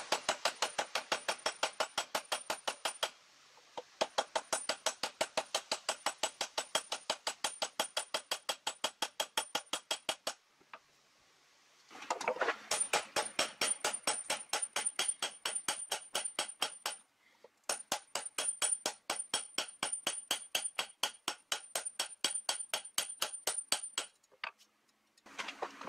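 A hand hammer forging red-hot steel on a small anvil, at about five ringing blows a second. The blows come in runs broken by brief pauses as the blacksmith draws out a throwing-axe head from an old pick.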